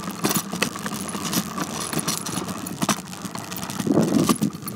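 Bicycle ridden over rough ground, rattling with irregular clicks and knocks over a low rumble, busier near the end.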